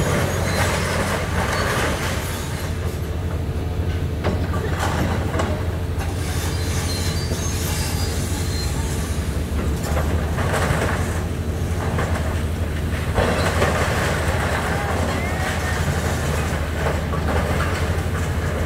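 Hitachi excavator's diesel engine running steadily while its demolition grab tears into the station building, with several bursts of crunching, scraping metal and falling debris. Thin metallic squeals come near the end.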